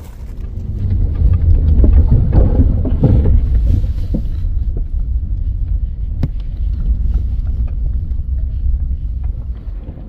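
Wind buffeting the microphone: a loud, uneven low rumble that swells over the first second, with a single sharp click about six seconds in.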